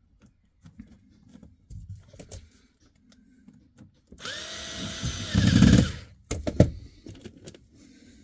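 Cordless drill-driver run for about two seconds, its motor winding up in pitch and then holding, heaviest near the end as it drives a screw, followed by a few knocks as the tool is handled and set down.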